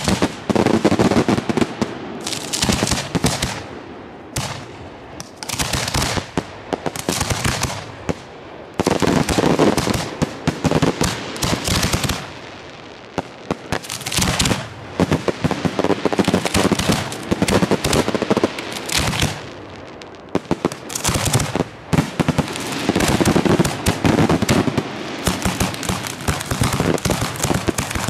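Finale barrage of a professional fireworks display: rapid volleys of shells and cakes firing and bursting in quick succession, with crackling. It comes in dense waves a few seconds long, with short lulls between.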